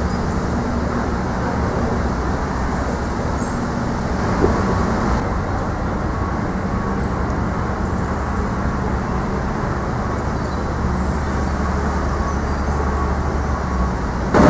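Steady low outdoor rumble with a faint hum, unchanging throughout.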